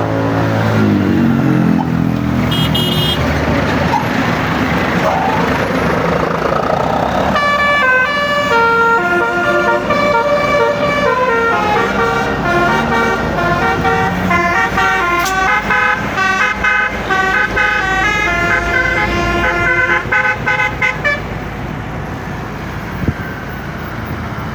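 A tour bus's basuri horn, a set of roof-mounted air-horn trumpets driven by a tune module, plays a melody of clear stepped notes. It starts about seven seconds in and stops a few seconds before the end. Bus engine and traffic noise runs underneath, with a few low notes at the start.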